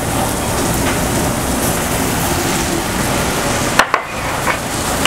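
Broccoli rabe and garlic sizzling in hot olive oil in a sauté pan, a steady frying hiss, with a sharp click about four seconds in.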